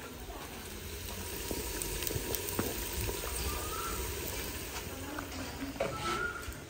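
Chopped onions sizzling in oil in a clay cooking pot over a wood fire: a steady hiss dotted with small pops and crackles.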